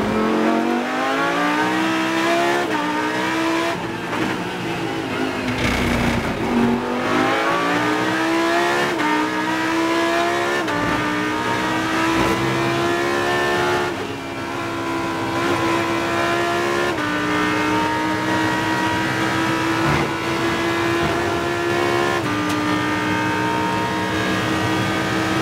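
Onboard sound of a Lamborghini Huracán Super Trofeo's V10 race engine under hard acceleration. The pitch sinks briefly as the car lifts for a corner, then climbs through the gears. In the second half come four quick upshifts about three seconds apart, each one a sudden drop in pitch before the note rises again.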